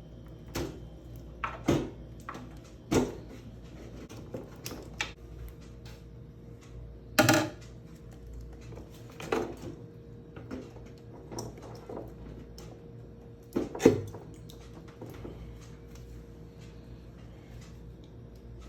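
Irregular knocks and clatters of hard objects being handled, about a dozen of them, the loudest about seven and fourteen seconds in, over a faint steady hum.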